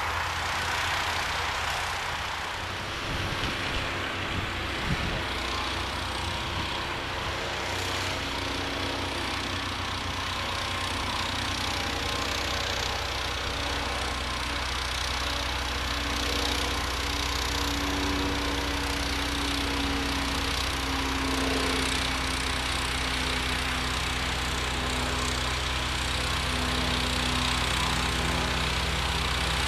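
The 16 HP engine of a modified John Deere 1032 snowblower running steadily under a continuous hiss, with a few light knocks about four to five seconds in.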